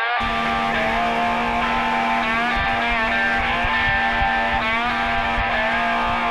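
Guitar music with sliding notes over a boat's outboard motor running steadily at speed.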